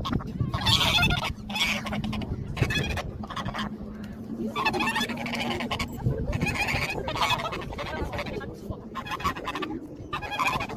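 Geese honking again and again, mixed with people's voices.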